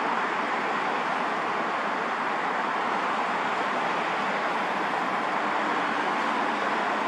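Steady, even rushing roar of distant airliner jet engines, with no change in level.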